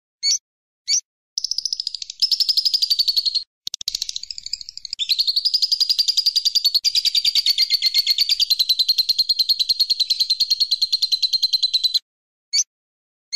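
Bird song: a few short separate chirps, then a long, fast, rapidly pulsed trill lasting about ten seconds that stops abruptly, followed by more short chirps near the end.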